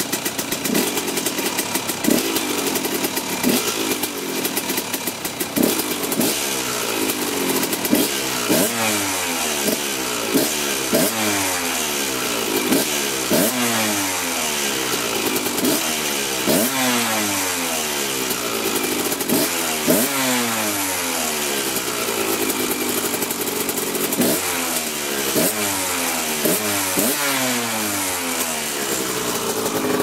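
2004 KTM 125 SX two-stroke engine revved in quick throttle blips, about one a second. Each blip shoots up and falls back down through the revs. The engine has a fresh piston with about three hours on the top end and new muffler packing, and the owner says the jetting is just right.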